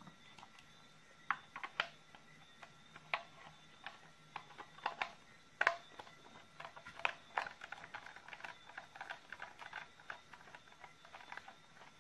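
Irregular small clicks, taps and scrapes of a steel screwdriver working at the hard plastic case of a Makita BL1813G 18 V battery pack, prying it apart. The sharpest click comes about halfway through.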